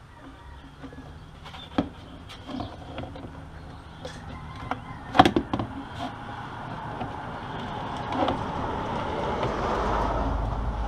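Knocks and clicks of an aFe cold air intake tube and its coupler being handled and pushed into place in the engine bay, the loudest cluster about halfway through. A rushing noise builds toward the end.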